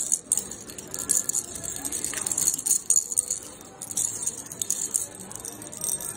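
Metal keychains jangling and clinking together on a display hook as a hand sorts through them, in several short bursts.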